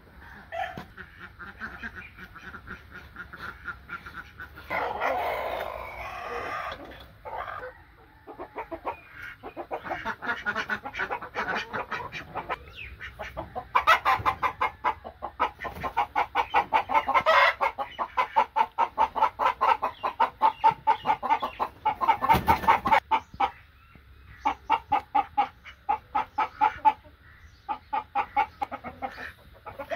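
Flock of chickens clucking in long, rapid runs of short calls, with a rooster crowing once about five seconds in.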